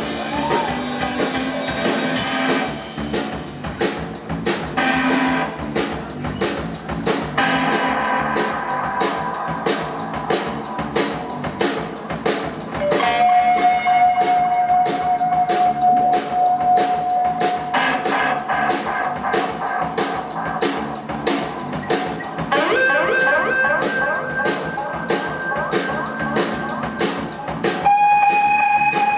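Live rock band playing: guitar over a steady drum-kit beat, with long held high notes coming in about halfway through and again near the end.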